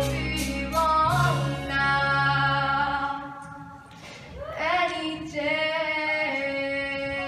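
A girl singing a solo musical-theatre number, holding long notes over a backing accompaniment that drops away about three seconds in. A new phrase begins about four and a half seconds in and settles into one long held note, sung unaccompanied.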